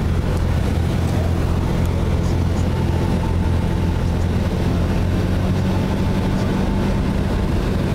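Cessna's piston engine and propeller droning steadily inside the cabin, with a low even hum under rushing air noise, on final approach to land.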